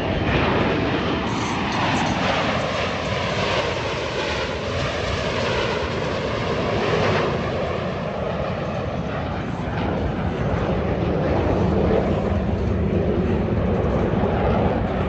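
Airplane engine noise as an aircraft flies past, its pitch falling in the first few seconds, then a steady loud rush.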